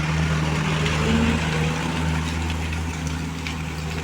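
Heavy truck's engine running steadily: a low, even drone with a haze of noise above it.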